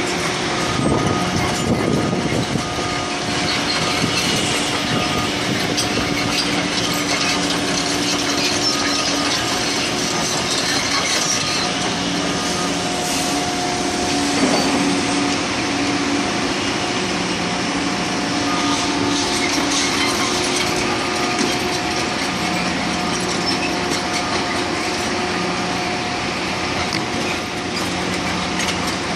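Heavy construction machinery running steadily: a wash of engine noise with several engine hums that come and go at different pitches.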